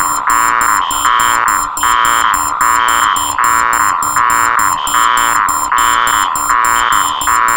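Several electronic alarm tones layered into one loud, continuous racket, pulsing in an even repeating pattern about twice a second, with rapid high beeps over it.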